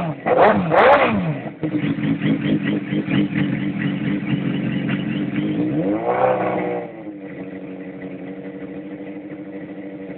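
Suzuki GSX-R 600 inline-four engine running through an aftermarket Race Fit slip-on silencer, revved in two quick blips at the start. It holds a steady raised engine speed, is blipped once more about six seconds in, then drops back to a quieter steady idle.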